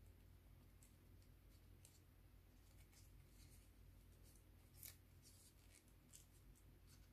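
Faint crinkling of origami paper being folded and creased: short scattered crackles, the loudest about five seconds in, over a low steady hum.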